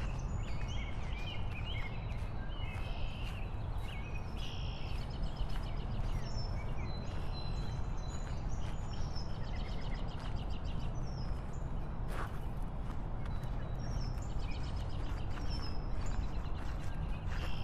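Birds chirping and trilling over a steady low rumble of wind and road noise from a moving motorbike.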